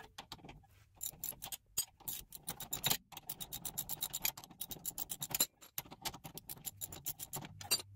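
Ratcheting wrench clicking in quick runs as it unscrews a 13 mm brake caliper bolt, with light metal scraping of the tool on the bolt.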